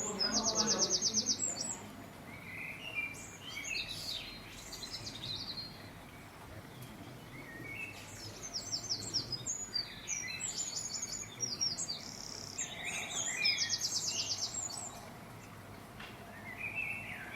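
Birds singing: rapid high trills of quickly repeated notes, coming a few times, with lower chirps and whistles between them.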